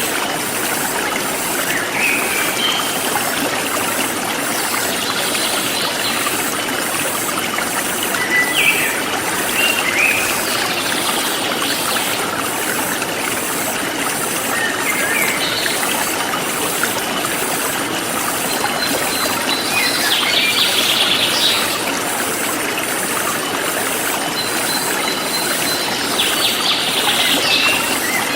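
A forest stream flowing steadily, with short bird chirps every few seconds and a fast, even, high-pitched insect chirping throughout.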